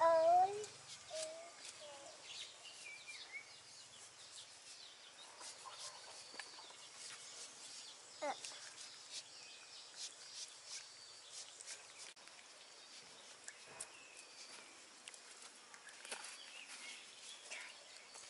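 Quiet outdoor ambience with chickens and small birds calling. One short pitched call stands out at the very start, and faint scattered clicks and chirps follow.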